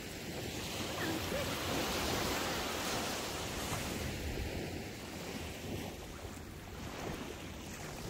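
Small ocean waves breaking and washing up a sandy beach, the surf swelling and easing, with wind rumbling on the microphone.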